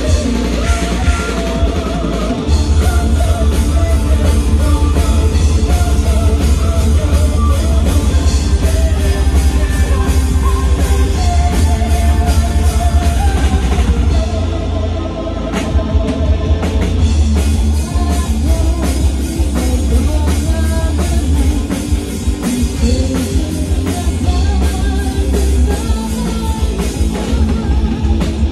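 Live symphonic metal band playing: distorted electric guitars, bass and a fast drum kit, with a woman singing over them. About halfway through the low end drops back briefly, then the full band comes back in.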